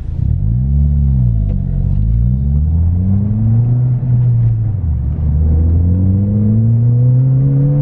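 Ford Fiesta ST's 1.6-litre turbocharged four-cylinder, through a Scorpion 3-inch non-resonated cat-back exhaust, heard from inside the cabin. A quick rev rises and falls about a second in, then the car pulls away with the engine note climbing. The pitch drops at a gear change about five seconds in and climbs again under acceleration.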